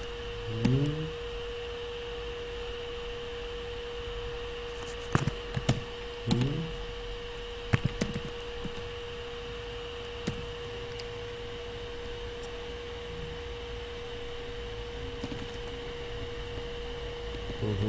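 A steady hum at one pitch, with a few scattered computer keyboard clicks as commands are typed.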